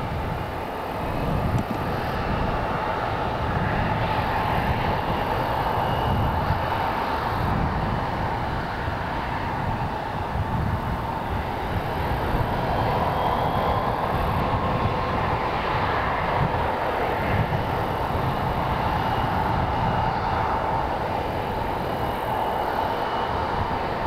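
Bombardier CRJ200 regional jet's turbofan engines running with a steady jet roar and a faint high whine, over an uneven low rumble.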